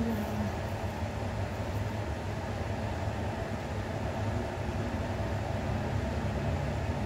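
Small clip-on electric fan running steadily: an even whir of air with a low motor hum.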